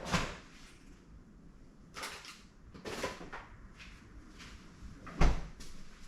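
Handling noises: a few short knocks and scrapes, the loudest a heavy thump about five seconds in, like a cupboard or drawer being shut.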